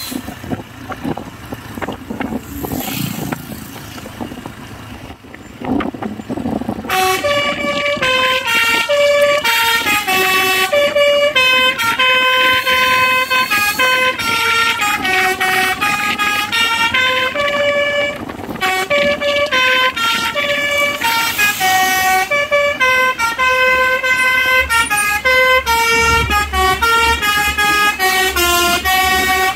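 Telolet horn on a cement mixer truck playing a Basuri melody: short horn notes that step up and down in a tune. The tune starts about seven seconds in and pauses briefly midway, with vehicle noise before it.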